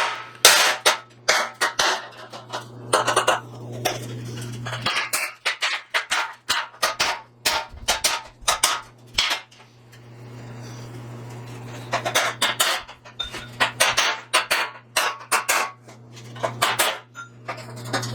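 Hammer striking a square chisel against a 2017 Ford F-150's steel front bumper, quick irregular runs of metal-on-metal blows, knocking the pushed-in section back out along a crease line. The blows pause for about two seconds in the middle, over a steady low hum.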